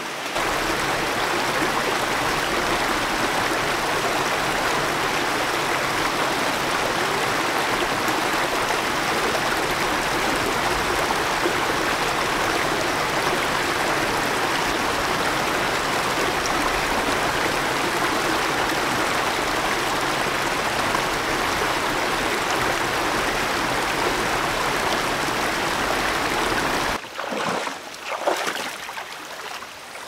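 Shallow rocky mountain stream rushing over stones, a steady loud water noise. Near the end the rushing drops to a quieter flow, with a few short splashes of feet wading through the water.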